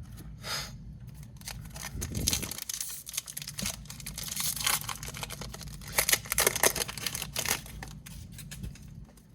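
Plastic penny sleeve rustling and crinkling with small scrapes and clicks as a trading card is handled and slid into it, busiest about two seconds in and again from about six seconds in.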